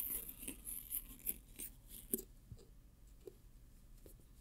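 Faint scratching and small ticks of hands handling a cardboard box and tugging at its ribbon pull-tab, busiest in the first two seconds, then fainter.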